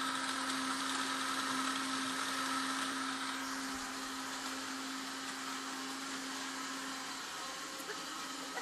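Countertop blender motor running steadily at full speed, blitzing cough candy sweets softened in a little hot water: an even whirring hum with hiss.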